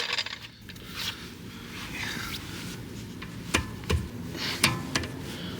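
Tools being handled while a jack and breaker bar are set up on a stuck lug bolt: soft scraping and handling noise with a few sharp metal clicks and knocks in the second half.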